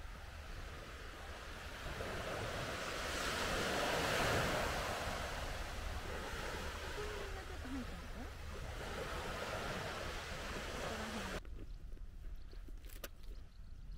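Small waves washing onto a sandy beach, swelling about four seconds in and again around nine seconds. Near the end the sound cuts off abruptly to a much quieter background with a single click.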